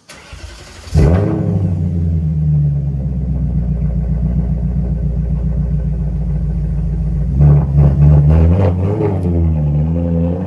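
BMW 540i E39's 4.4-litre V8 catching about a second in and idling steadily, then revved up and down a few times near the end before settling back to idle.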